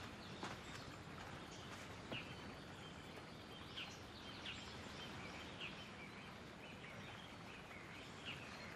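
Faint quiet ambience with short bird chirps now and then.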